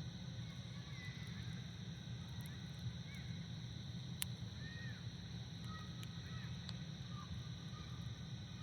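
Campfire burning with a steady low rush and a few sharp crackles, the clearest about four and six seconds in. Steady high-pitched background hum and a few faint short animal calls run underneath.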